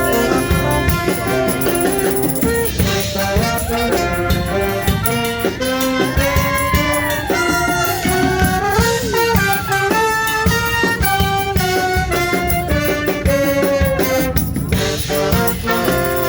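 A live band playing music with a steady beat, its sustained melody notes bending in pitch midway through.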